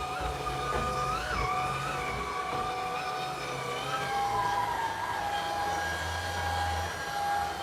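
Shark Pet cordless stick vacuum running, its motor whine wavering and shifting in pitch a few times as it is pushed over the floor.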